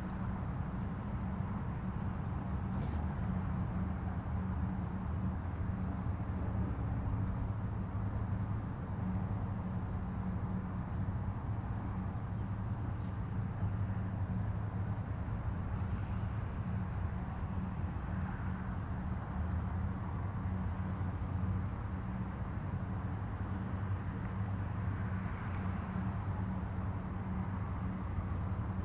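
Distant highway traffic: a steady low rumble of tyres and engines that swells gently now and then as heavier vehicles pass. A faint, rapidly pulsing high chirp runs over it.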